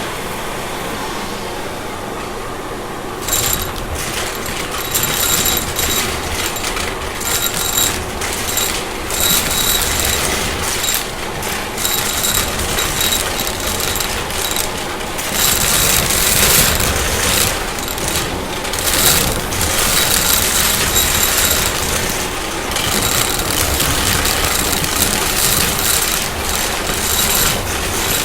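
Shark vacuum cleaner running with a steady high motor whine. From about three seconds in it picks up debris in a mess test, which rattles and clicks as it is sucked in.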